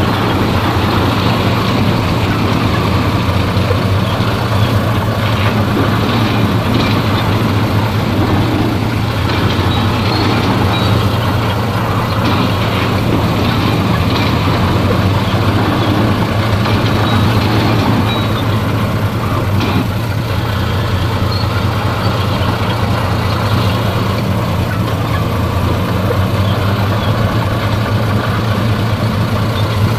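Heavy diesel earthmoving machinery running steadily with a constant low engine hum, with a few faint knocks over it.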